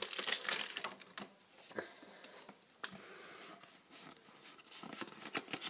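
Foil wrapper of a Pokémon card booster pack crinkling as it is handled and opened, with short clicks and rustles of the cards; the crinkling is busiest in the first second and picks up again near the end.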